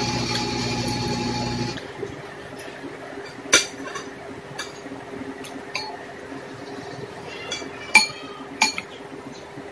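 A steady machine-like drone cuts off suddenly about two seconds in. After that, a metal fork clinks sharply against a ceramic plate several times, loudest about halfway through and near the end.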